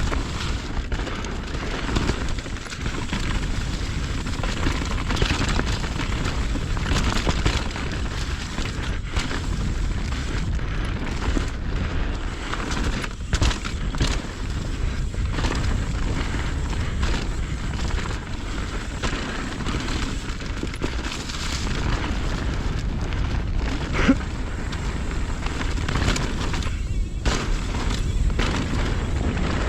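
Mountain bike riding fast down a dirt trail: wind buffets the camera microphone over the steady noise of tyres on dirt, and the bike rattles and clicks over bumps, with one sharper knock late on.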